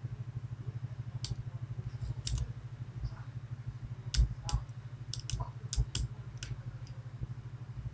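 Lock pick and tension wrench working the pins of a 5-pin Medeco Biaxial lock while it is still being picked: scattered sharp clicks, bunched closer together in the middle, over a steady low hum.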